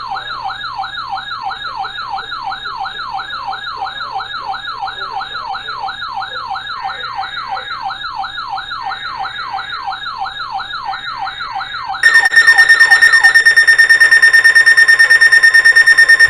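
Electronic siren alert sound. A yelp sweeps up and drops back about three times a second, then about twelve seconds in a much louder, steady, high tone takes over, pulsing rapidly.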